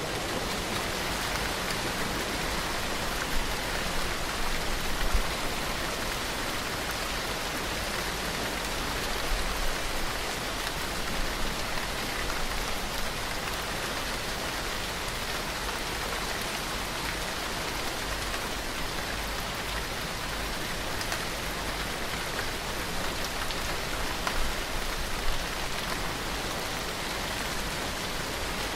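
Steady, heavy rain: a dense, even hiss of rain falling on surfaces, with a few brief, louder spatters of drops.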